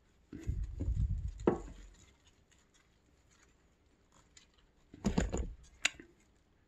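Handling noise from a potted orchid being pressed and shifted by hand: muffled thumps and rustling in two bursts, one in the first two seconds and one about five seconds in, each ending with a sharp tap.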